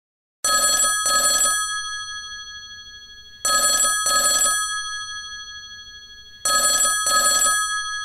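Mobile phone ringing with an incoming call: a double ring repeated three times about three seconds apart, each ring fading away before the next.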